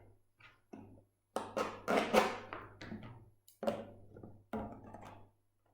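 Plastic drinks bottle being handled and pierced with a knife: a few separate crackles and knocks of thin plastic, the loudest about a second and a half in.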